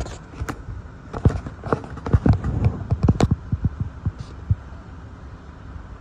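Hurricane-force wind gusts buffeting the microphone: a run of irregular thumps and knocks over a steady low rumble. The thumps come thickest from about one to three seconds in and die away by about four and a half seconds.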